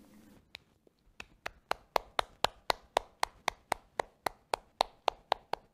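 A child clapping her hands in a steady rhythm of about four claps a second, after a few scattered claps at the start.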